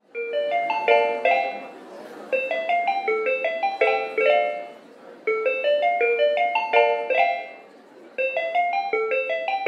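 Music: a quick melody of short pitched notes, played on a keyboard or mallet-like instrument, in repeating phrases of a few seconds each.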